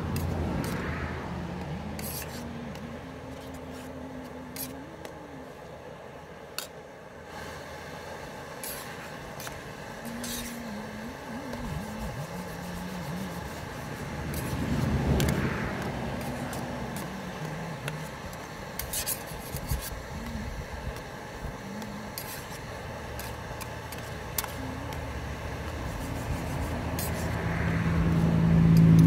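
Road vehicles passing by, each rising and fading: three passes, the last and loudest near the end with its engine clearly heard. Small clicks and scrapes in between.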